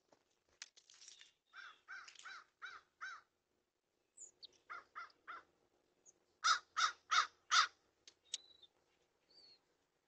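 Crows cawing in three quick bouts of harsh caws, the last bout the loudest, with a few short high chirps and a brief whistle from smaller birds late on.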